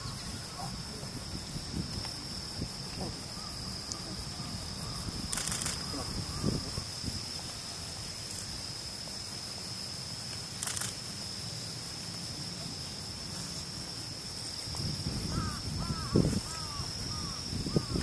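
Outdoor ambience dominated by a steady, high-pitched insect drone, over a low rumble. A run of short, curved calls comes near the end.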